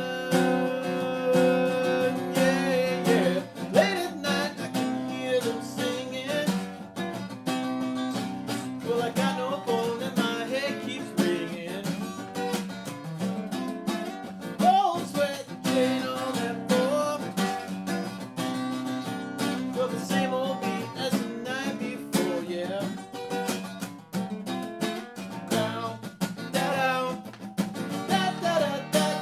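Guitar instrumental break: a lead part of picked melody notes with short string bends over ringing chords.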